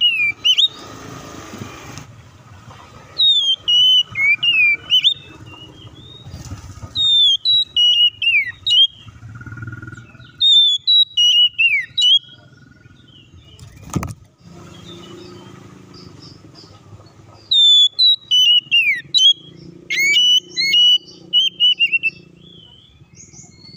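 Oriental magpie-robin singing in loud phrases of short, sharp whistled notes that sweep up and down. A single sharp knock comes about halfway through, over a faint low rumble.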